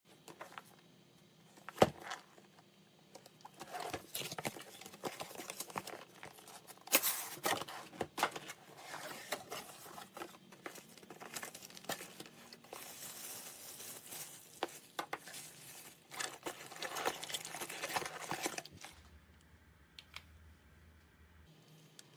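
Items being handled: crinkling and rustling with scattered clicks and knocks, and sharp knocks about two seconds in and about seven seconds in.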